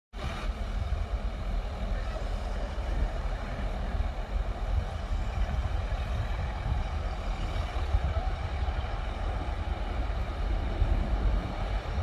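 Diesel engine of heavy earthmoving machinery running steadily, with a strong low rumble.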